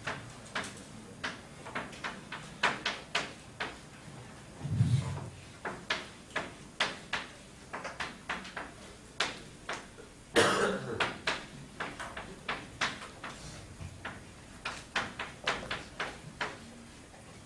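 Chalk tapping and scratching on a chalkboard as code is written out: a run of short, sharp clicks, several a second and unevenly spaced, one for each stroke. About ten seconds in there is a louder, longer sound.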